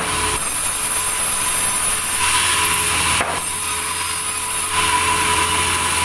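Large sawmill band saw running with a steady hum and tone while its blade rips a thick timber beam lengthwise into a plank; the cutting noise grows louder about two seconds in and again near the end, with a short knock just after three seconds.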